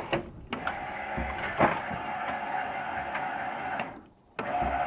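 Power Lippert stabilizing jack on a travel trailer, its electric motor running with a steady whir. It cuts out briefly about four seconds in and starts again.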